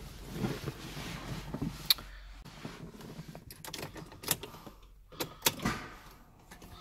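Rustling and handling noise inside a Ferrari 458 Italia's cabin as someone gets into the driver's seat, with several sharp clicks and knocks spread through it.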